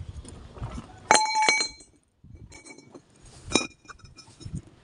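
Steel pipes clanging as they are dropped onto concrete: two ringing metallic clanks. The first, about a second in, is the louder; the second comes about two and a half seconds later.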